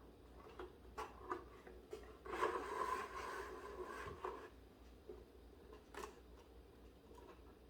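Small handling noises: a few light clicks and taps, and about two seconds of rubbing or scraping near the middle, over a low steady hum.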